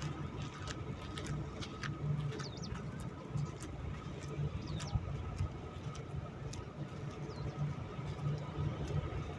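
Steady low machinery hum with a faint higher tone, scattered light clicks and a few short bird chirps.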